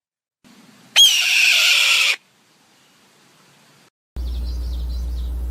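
Red-tailed hawk giving one harsh, raspy scream about a second in, starting high and falling in pitch over about a second. From about four seconds in, a steady low hum with faint high chirps.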